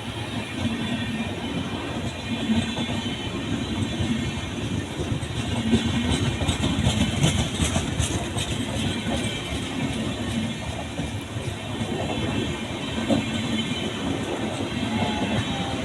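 Punjab Mail express train running past: a steady rumble of coaches on the track, with a run of sharp metallic clacks around the middle.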